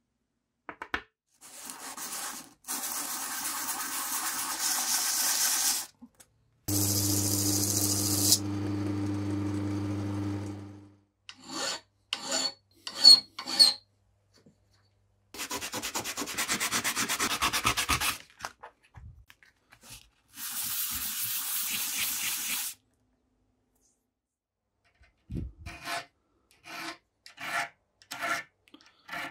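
Hand sanding and filing of small pitted steel can-opener parts: stretches of back-and-forth sandpaper rubbing, then runs of short file strokes, including a file across the teeth of a small gear near the end. A steady electric motor hum sounds briefly about a quarter of the way in.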